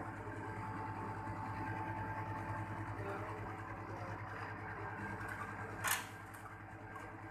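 Split air conditioner's outdoor unit running with a steady low electrical hum from its compressor and fan, during a refrigerant pressure check with manifold gauges. A single sharp knock comes about six seconds in.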